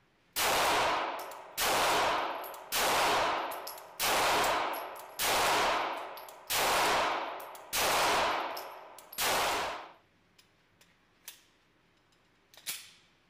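Eight slow, evenly paced shots from a 9mm competition pistol, about one every 1.2 seconds, each followed by a long echo off the concrete walls of an indoor range. A few light metallic clicks follow near the end as the pistol is handled.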